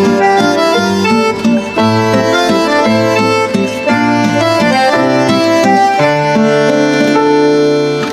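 Instrumental background music with a melody of held notes over a low bass line.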